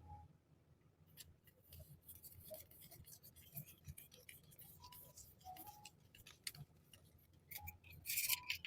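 Faint clicks, taps and rustles of small packaged items and wrapping being handled, with a louder crinkling rustle about eight seconds in.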